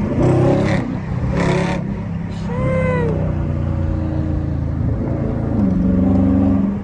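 A Dodge Charger's 392 Hemi V8, fitted with a Mopar cold air intake, running steadily on the move, heard through an open window. Its pitch rises slightly about five and a half seconds in. There are two short rushes of noise in the first two seconds and a brief arched squeal about three seconds in.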